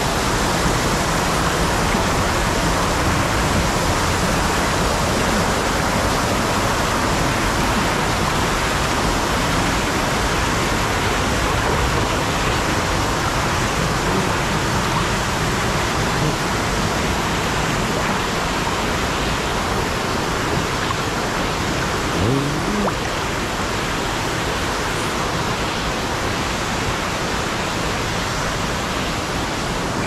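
Waterfall's rushing water, a steady, loud roar of falling water. A brief rising sound cuts through it about two-thirds of the way in.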